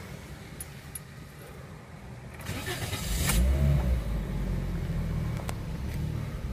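A 2017 Toyota Vios engine is cranked by its starter about two and a half seconds in, catches with a brief flare a second later, and settles into idle. The car was brought in for a rough, unstable idle.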